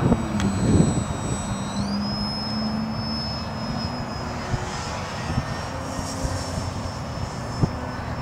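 Electric motor and propeller of a foam RC Piper Cherokee model in flight: a thin, high whine that rises in pitch about two seconds in as the throttle is opened from a half-throttle cruise, then holds steady. Wind on the microphone runs underneath.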